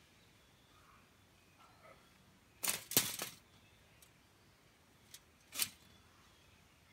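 Metal wire-mesh cage trap rattling and knocking on paving stones as a kitten paws at it and shoves it about: a quick cluster of sharp knocks about two and a half seconds in, then a few single clicks, one loud knock near the end.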